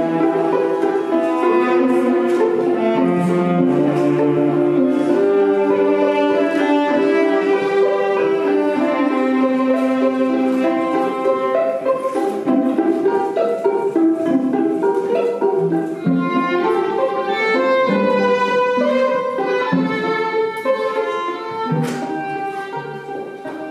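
Bowed string ensemble with violin and cello playing a slow, sustained processional piece, fading toward the end.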